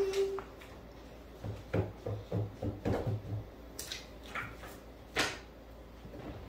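A butter knife scraping soft butter onto a piece of bread, in short strokes, with a few light knocks and clicks at the counter.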